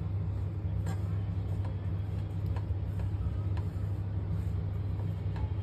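A wooden spatula stirring crushed cashews and almonds roasting in ghee in a non-stick kadhai, with a few light scrapes against the pan. Under it runs a steady low hum.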